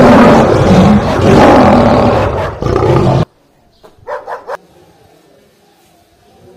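A loud, continuous animal roar that cuts off suddenly about three seconds in, followed by quiet with two short sounds about a second later.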